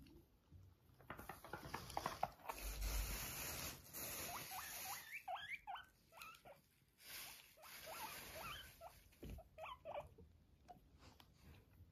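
Silkie guinea pig making short high squeaks, rising and falling, in two runs around the middle and near the end, over soft rustling and pattering.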